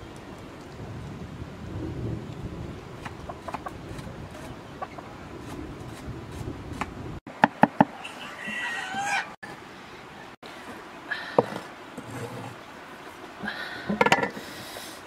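A cleaver chopping vegetables on a wooden block, a quick run of sharp chops about seven seconds in and more knocks near the end, while chickens cluck and call in between.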